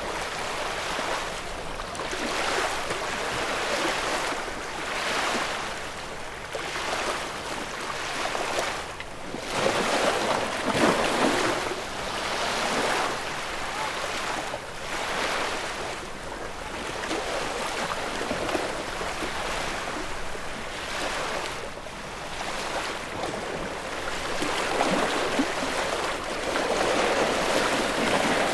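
Ocean waves washing onto a shore, each one swelling and falling away every couple of seconds, with a stronger surge about ten seconds in.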